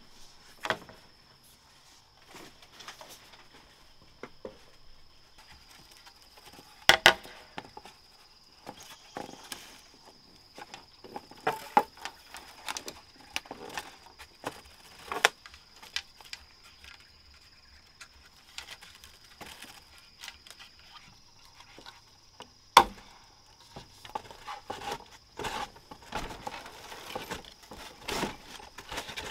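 Irregular knocks and clicks of wood or bamboo being handled and struck while building, with two sharp, loud knocks, one about a quarter of the way in and one about three-quarters in. A steady high-pitched insect drone runs underneath.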